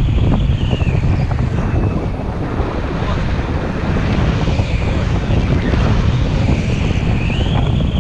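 Wind buffeting the microphone of a pole-held camera in tandem paraglider flight: a steady, loud rumble.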